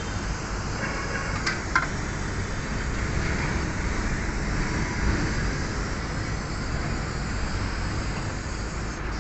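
Steady background noise of a car repair shop, a low rumble and hiss, with two short clicks about a second and a half in.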